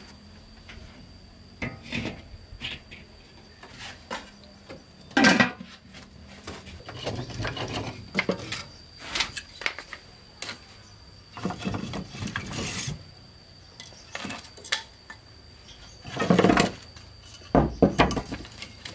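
Split wooden kindling sticks being laid and knocked into the ashy firebox of a brick wood stove: an irregular series of wooden clatters and knocks, loudest about five seconds in and again near the end. A thin steady high-pitched tone runs underneath.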